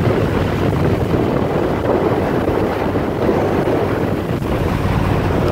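Motorcycle engine running steadily on the move, mixed with wind buffeting the phone's microphone.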